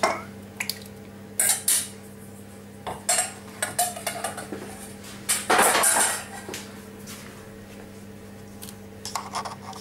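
Stainless steel mixing bowls clinking and knocking as they are handled and set down on a kitchen worktop: scattered single knocks, a longer rattling clatter about halfway through, and a few quick clicks near the end.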